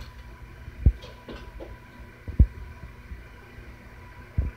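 Four dull, low thumps at irregular intervals over a steady faint hum.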